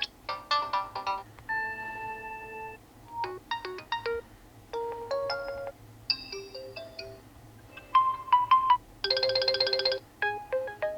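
Realme C55 default ringtones previewed one after another: about eight short electronic melodies, each cut off after a second or so, with brief gaps between them.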